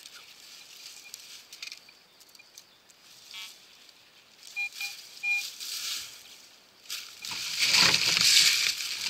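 Metal detector sounding three short high beeps as it is swept over dry leaf litter, then loud rustling and crunching of dry leaves close by near the end.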